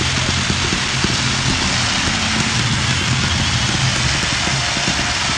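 Ground firework fountains spraying sparks: a steady hiss full of dense crackling, over a low steady hum.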